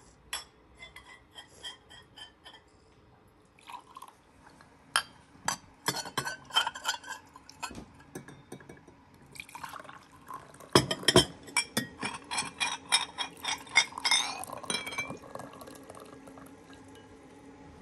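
Cut-crystal tea glasses clinking against porcelain saucers as they are set out, then tea poured from a glass teapot into the glasses, the pitch rising as a glass fills.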